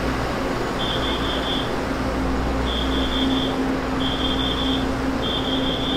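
A steady low hum over a noisy background, with a high-pitched beep-like tone repeating about five times, each lasting most of a second, at slightly uneven gaps of around a second.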